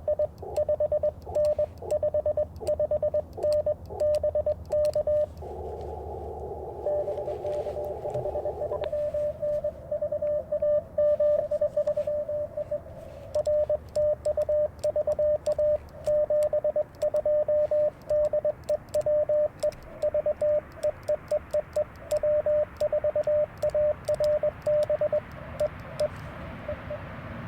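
Morse code (CW) tones from an Icom IC-705 amateur radio: a single beep keyed on and off in dots and dashes. About a third of the way in, the keying gives way to an unbroken steady tone for a few seconds, then the dots and dashes resume.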